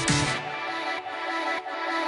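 Electronic background music; the deep bass falls away shortly after the start, leaving the upper synth parts.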